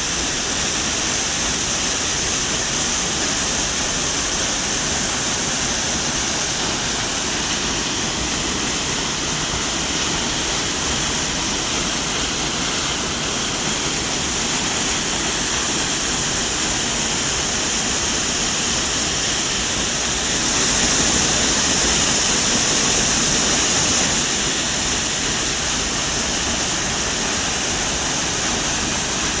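Waterfall: water pouring and splashing in a steady rush, a little louder for a few seconds about two-thirds of the way through.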